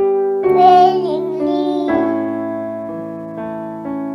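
A child's voice sings a short phrase over electric piano chords; for the second half the keyboard chords carry on alone, changing about once a second.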